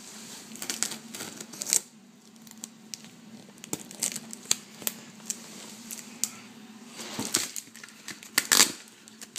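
Cardboard shipping box handled while its packing tape is slit and torn with a box cutter: irregular scraping, crinkling and tearing with sharp clicks, in two busier stretches, about a second in and again near the end.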